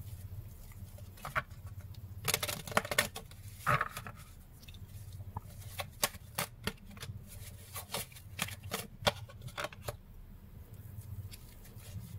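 Cards being shuffled and handled by hand: soft, irregular flicks, riffles and taps of card stock, with a faint low hum underneath.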